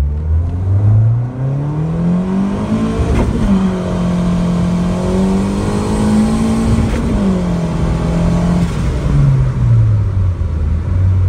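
Turbocharged Honda Civic engine under a full-throttle pull at about 10 psi of boost. The revs climb for about three seconds and break with a gear change, pull on high, then fall away as the throttle is lifted near the end, settling into a low steady drone.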